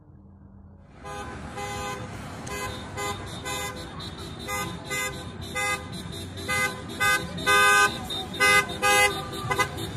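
Car horns honking again and again in passing street traffic: many short toots and a longer blast near the end, celebratory honking for a national day. The honking starts about a second in.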